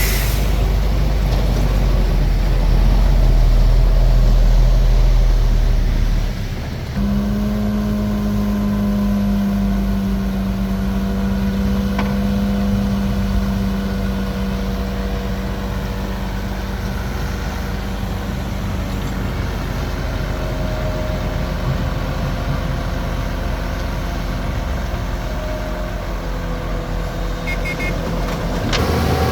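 Heavy diesel earthmoving machinery running steadily. A deep rumble for the first six seconds changes abruptly, about seven seconds in, to a steadier running sound with a constant low hum.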